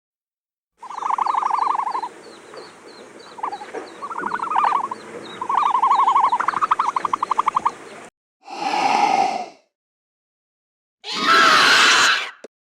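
Animal sound effects: several seconds of rapid, pulsed trilling calls over a steady ticking, then two short, loud creature calls, the second harsher with sweeping pitch.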